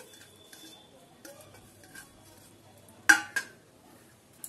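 Stainless steel plate and bowl handled while chopped fenugreek leaves are tipped into flour, with faint light taps. About three seconds in, the metal clanks twice in quick succession, ringing briefly, as the steel plate is knocked or set down.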